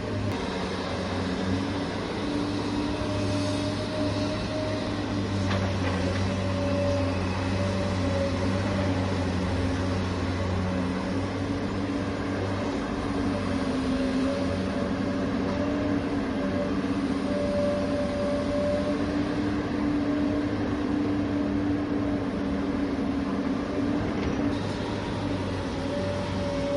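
Scale radio-controlled construction machines working, their electric motors giving a steady mechanical whine whose pitch wavers slightly.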